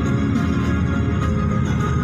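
Music: a continuous melody of sustained, organ-like tones.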